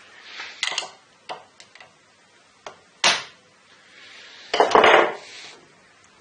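Metal parts of an opened combination padlock clinking and scraping as its end is worked at to come off: a few sharp clicks, a loud clink about halfway through, and a louder scraping rattle later on.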